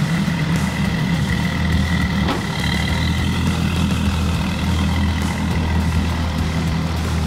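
Twin Mercury Racing 300 outboard engines idling with a steady low drone, which deepens a little about two and a half seconds in.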